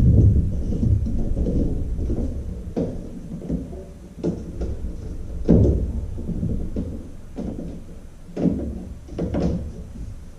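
Gimbal mount being fitted and adjusted on the side of a jon boat: several hard clunks and knocks over a low handling rumble that fades away.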